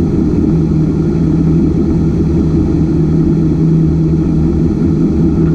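Ultra4 race car's engine idling, a loud, even low drone with a steady hum that holds one pitch throughout.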